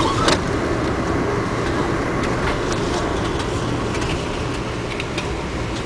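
Passenger train coach riding at speed, heard from inside the car: a steady rumble of wheels on rail, with one sharper knock about a third of a second in and a few light clicks later.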